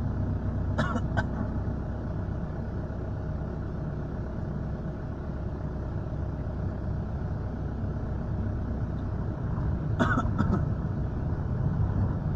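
Steady engine and road rumble heard from inside a moving vehicle, with two brief sharp sounds, about a second in and again near ten seconds.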